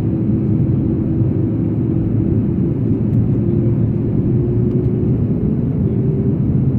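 Steady cabin noise inside an Airbus A330-200 in descent: a continuous rush of airflow and the drone of its twin GE CF6-80E1A3 turbofan engines, with a faint engine tone that drifts slightly in pitch.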